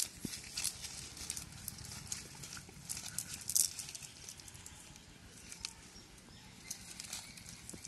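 Cast net being dragged and lifted over dry leaves and twigs, giving irregular rustling and sharp crackles, loudest about three and a half seconds in.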